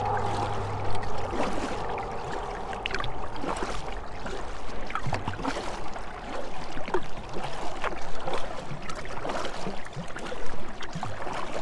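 Canoe paddling: a paddle dipping and pulling through the water in irregular strokes, with splashes, drips and water gurgling along the hull. A low steady hum stops about a second in.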